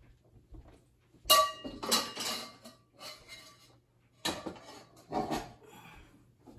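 Metal spatula clanking and scraping against a wok while the stir-fry is scooped out, with one sharp ringing clang about a second in and several shorter scrapes and clatters after it.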